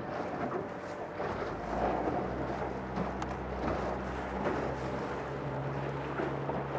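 Outboard motor on a fishing boat running steadily under way: a low engine hum under a steady rushing noise.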